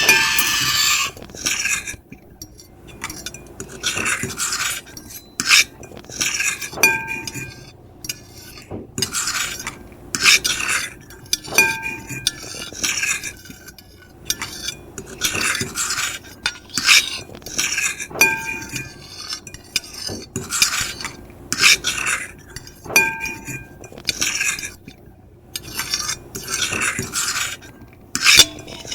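Metal fork and knife scraping across a plate in irregular strokes, one long loud scrape at the start and then shorter scratches every second or two, some with brief high-pitched squeaks.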